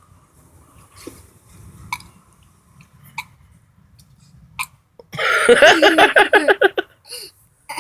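A young boy's long, stuttering burp, about a second and a half, starting about five seconds in, brought up by the carbonated cola he has been gulping.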